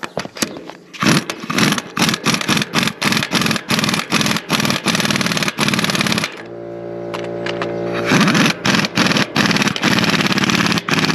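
Pneumatic impact wrench hammering in repeated bursts as it tightens bolts on a New Holland H6750 disc mower's cutter bar. About six seconds in it runs for a couple of seconds with a steady whine and no hammering, then hammers again.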